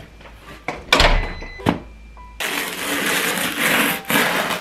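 Polystyrene foam shipping box being handled: a couple of sharp knocks as it is put down, then a long stretch of noisy scraping and squeaking of foam against foam and the floor, with another knock near the end.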